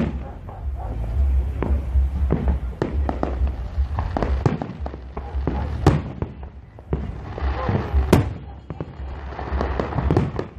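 Aerial fireworks exploding in quick succession: a rapid series of sharp bangs and cracks over a continuous low rumble of booms.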